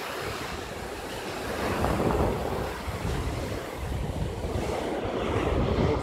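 Small waves breaking and washing up the shore, with wind buffeting the microphone. The surf swells louder about two seconds in and again near the end.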